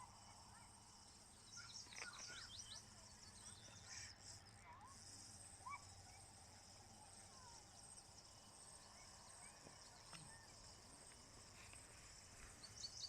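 Faint outdoor ambience: a steady high drone of insects with short bird chirps, a quick run of them about a second and a half in and another near the end.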